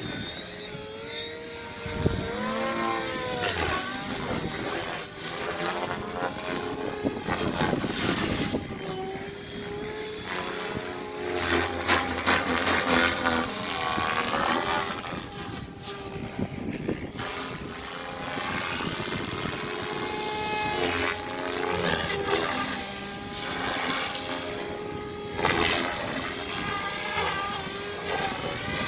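Compass eXo electric RC helicopter flying aerobatics with its rotor head governed at about 2350 rpm: the rotor blades and motor whine keep rising and falling in pitch as the blades load and unload through the manoeuvres.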